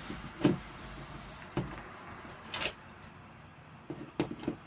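A few scattered light clicks and knocks from hand work on a ceiling light fixture while its mounting screws are being removed.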